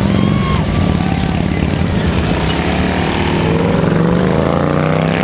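Engines of several cruiser and touring motorcycles riding out in a group. One bike's engine note rises as it accelerates, from about three seconds in to near the end.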